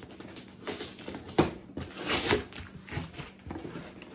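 Packing tape being picked at and peeled off a cardboard shipping box, with the cardboard rustling: a sharp crack about a second and a half in, then a longer rasping peel, and a few small clicks near the end.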